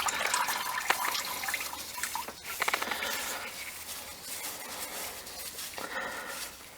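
Engine oil trickling and dripping from a spin-on oil filter as it is being unscrewed by hand, with a few small clicks.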